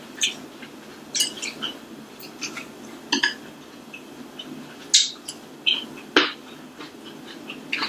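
Close-miked eating sounds: wet mouth smacks and chewing of noodles, with wooden chopsticks clicking and scraping on a plate. They come as scattered short clicks, the loudest about five and six seconds in.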